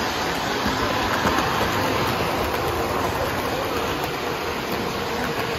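Model Pennsylvania Railroad F-unit diesel toy train running along its layout track: a steady rumble of wheels and motor with a faint steady hum.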